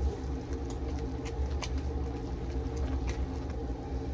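Pot of apricot habanero jelly at a hard boil on high heat for its one-minute set after the pectin: scattered sharp pops of bursting bubbles over a steady low hum.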